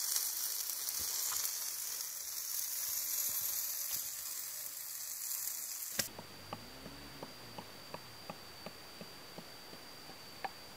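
Whole snakehead fish grilling over hot embers, a steady sizzling hiss. About six seconds in it cuts off abruptly, giving way to quieter, regular light knocks, about two or three a second, from a pestle in a clay mortar, over a thin steady high tone.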